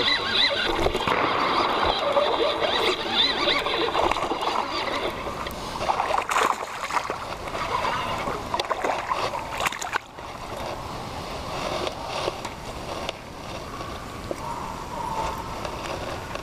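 A hooked largemouth bass splashing and sloshing at the water's surface as it is fought and reeled in to the bank.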